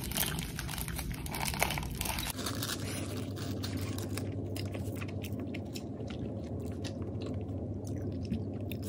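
A person chewing a mouthful of food close to the microphone, with many small crunchy crackles.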